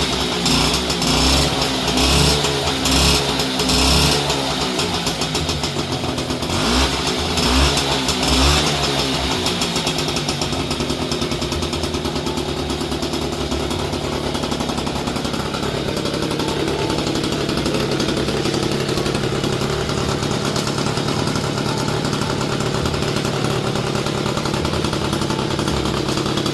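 Peugeot 103 moped's small two-stroke single-cylinder engine running. It is revved in a series of short blips over roughly the first nine seconds, then settles to a steady idle.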